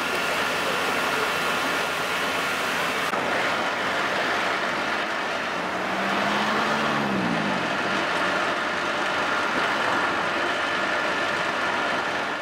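Motor-vehicle engines running steadily over a constant outdoor noise, with one engine's tone bending about six to seven seconds in as a vehicle passes.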